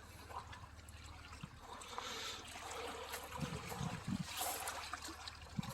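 Faint water lapping and trickling along the bay's shoreline, over a steady low rumble.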